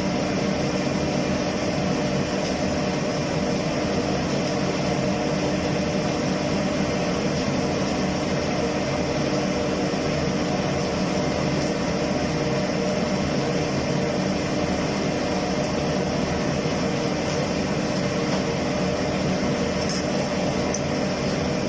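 Steady mechanical drone of a kitchen exhaust fan running, with a constant low hum and an even rushing noise. A few faint clicks come near the end.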